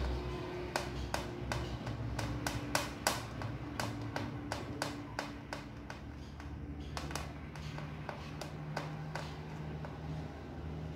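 A fork pricking pizza dough, its tines tapping through onto the lid underneath: a run of quick, irregular clicks, two or three a second, thinning out after the middle.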